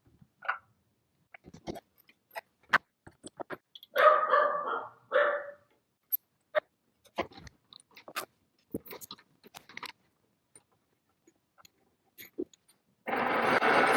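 Scattered clicks and knocks of tools and parts being handled, with a dog barking twice about four and five seconds in. Near the end a machine starts up and runs steadily.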